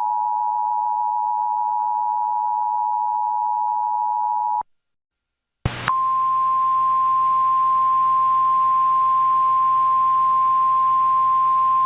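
Emergency Alert System two-tone attention signal: two steady tones sounding together just under 1 kHz, the 853 and 960 Hz pair, cutting off abruptly about four and a half seconds in. After about a second of silence and a short blip, a single steady alert tone a little above 1 kHz starts over a hiss, as on a relayed broadcast.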